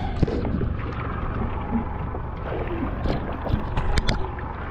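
Steady low rumble aboard an offshore fishing boat, with a few short sharp knocks from handling gear, two of them near the end.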